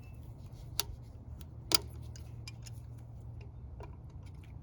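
Scattered small clicks and ticks of a rubber tube and its hose clamp being fitted back onto a car engine's intake manifold by hand, the sharpest click about a second and three quarters in, over a steady low hum.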